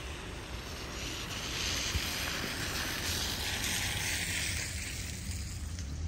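A vehicle passing on a wet, slushy road: tyre hiss swells over a couple of seconds and fades again, over a low rumble.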